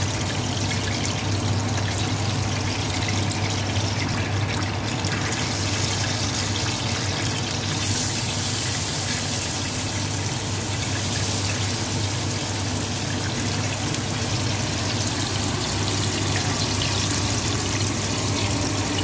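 Chicken souvlaki skewers sizzling in hot oil in a grill pan, with fries frying in a pot alongside: a steady hiss that turns brighter about eight seconds in, over a low steady hum.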